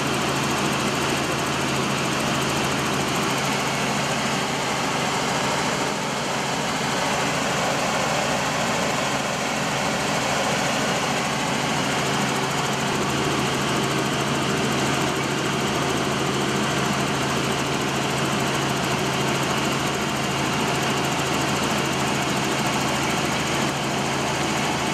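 Helicopter engine and rotor noise heard inside the cabin in flight: a steady drone with a low hum that does not change.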